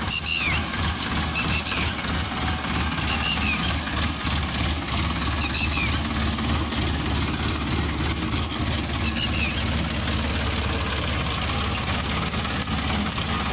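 Tractor engine running steadily while pulling a seed drill through dry field soil. A few short high chirps come through now and then.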